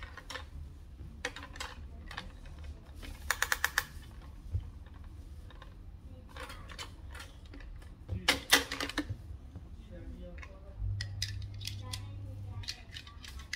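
Plastic toy pieces being handled: scattered clicks and rattles from a toy pop-up toaster and toy washing machine, with a quick run of rapid clicks a few seconds in and a louder cluster of clacks past the middle. A low steady hum lasts about two seconds near the end.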